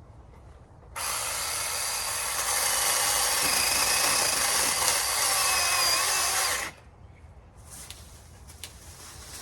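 Battery-powered 6-inch mini chainsaw running at full speed for about six seconds, cutting through a maple branch, a little louder once it bites into the wood, then stopping suddenly.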